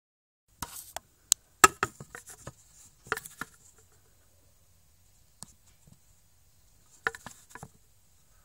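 Handling noise: irregular sharp taps, clicks and rustles in two clusters, one from about half a second in to about three and a half seconds, and a shorter one near seven seconds, with near quiet between.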